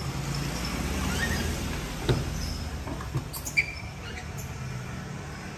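Faint, short high squeaks from a baby monkey over a steady low background rumble, with a few sharp clicks; the last loud click, about three and a half seconds in, is the SUV's door latch as the driver's door is opened.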